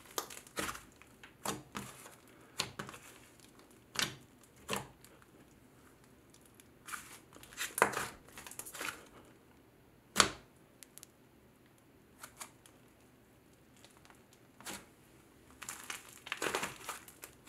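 Thick clay-based butter slime being squeezed, poked and pressed by hand, giving irregular sizzly crackles and sticky popping snaps. A sharper pop comes about ten seconds in, followed by a quieter stretch.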